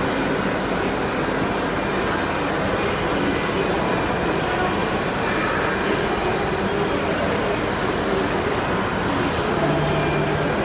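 Jinan Quick UB-481 CNC router with automatic tool changer running, a steady mechanical noise blended with the constant din of a busy exhibition hall. A low hum comes in briefly near the end.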